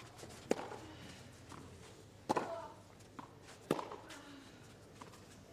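Tennis ball struck by rackets in a baseline rally: three sharp hits about a second and a half apart, and a fainter hit near the end.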